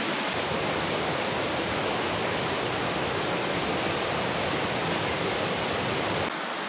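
Steady rush of a river's flowing water. It turns duller, losing its high hiss, about half a second in, and brightens again near the end.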